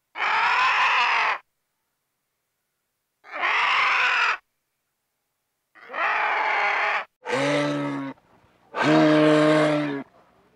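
Three harsh, hoarse vulture calls, each about a second long with pauses between. These are followed by two lower, steadily pitched calls from a bull moose, about seven and nine seconds in.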